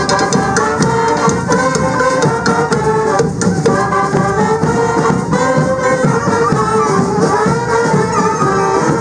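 Street wind band playing a lively tune together, with saxophones, clarinets, tuba and trumpet, and percussion keeping the beat.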